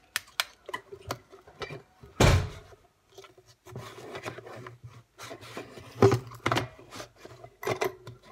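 Close handling noise from a large yellow plastic lantern flashlight being fiddled with: rubbing, clicking and knocking, with a loud thump about two seconds in and another about six seconds in.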